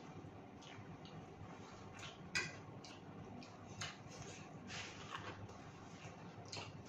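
Quiet eating sounds: scattered small clicks and smacks of two people eating spicy instant noodles with forks, the sharpest click about two and a half seconds in.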